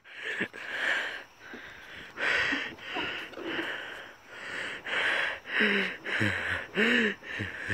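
A person's breathing and sniffing close to the microphone, in quick breathy puffs, with a few short hummed or grunted voice sounds in the second half.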